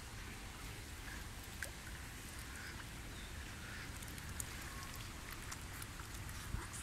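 Faint pond-side ambience: a low uneven rumble with scattered small ticks and light water splashes from mute swans dabbling at the surface.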